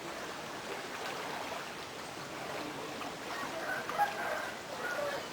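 Steady rush of flowing floodwater, with a few faint, short distant calls about four seconds in and again near the end.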